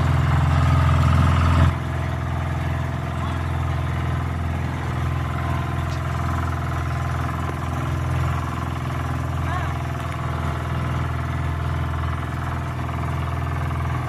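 Motor boat's engine running steadily, a dense low drone with a rapid even firing beat; it drops in loudness a little under two seconds in and then holds steady.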